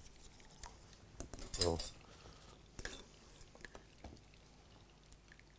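A metal spoon stirring thick béchamel sauce in a stainless steel saucepan, clinking and scraping against the pan in scattered faint clicks. There is a brief voice sound about a second and a half in.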